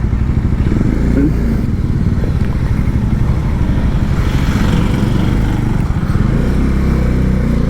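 Motorcycle engine running steadily while the bike is ridden through traffic, with its even exhaust pulse and road noise.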